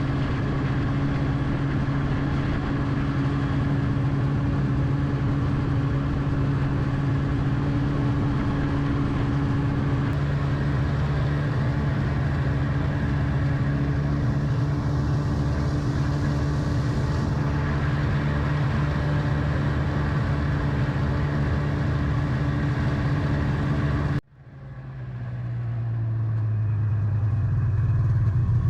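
A vehicle engine running at a steady pace. About 24 seconds in the sound cuts off abruptly and a lower engine note fades back in.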